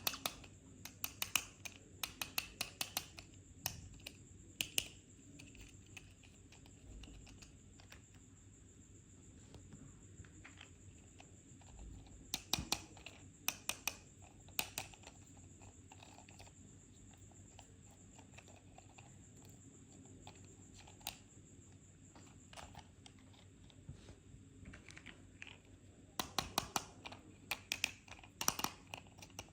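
Irregular clusters of sharp plastic clicks and taps from small toy cars and their packaging being handled. They are heaviest in the first few seconds, again around the middle and near the end, over a faint steady high whine.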